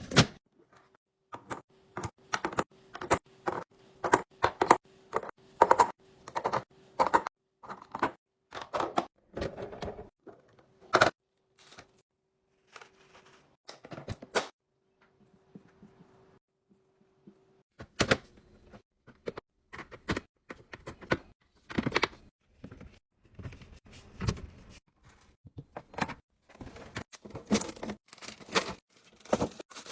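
Kitchen containers and utensils being handled and set down: an irregular series of clacks, knocks and clicks, thinning out to a brief lull in the middle before picking up again.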